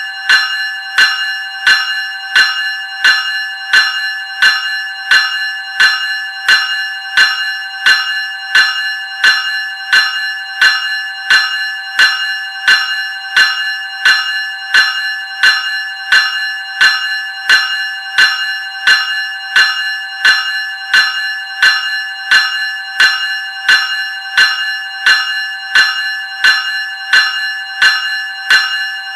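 Graham Electric Bell 373 Series ringing, its gong struck in an even, unbroken rhythm of about three strikes every two seconds, each ring carrying over into the next.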